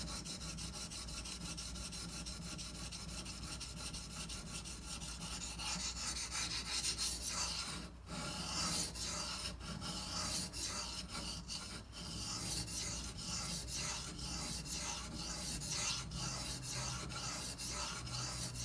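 Steel knife blade stroked back and forth across a wet 1000-grit water stone, a continuous scratchy grinding with brief pauses about 8 and 12 seconds in. This is the 1000-grit stage, grinding the second side of the edge to raise and flip the burr.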